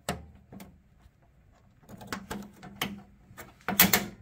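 Irregular clicks and knocks from hands handling the camera and equipment, with a louder cluster of knocks near the end.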